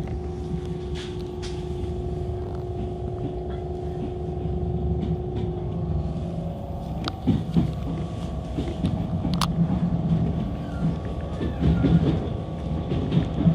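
Enshū Railway electric train running, heard from inside the car: a steady rumble with a steady motor whine, and a few sharp knocks from the wheels on the track in the second half.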